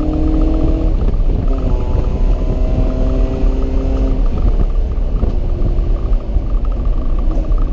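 Car engine running hard at speed over heavy low rumble, its pitch climbing slowly and then dropping back several times, as through gear changes.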